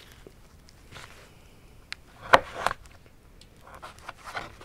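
Small knife cutting through a squirrel carcass at the backbone and ribs: quiet handling with a few faint clicks, and two sharp crackling clicks close together a little past two seconds.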